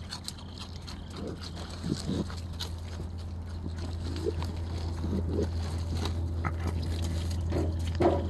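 Raccoons feeding at a plastic bag of cheese balls: scattered faint clicks and rustles, and a few short low vocal sounds, over a steady low hum.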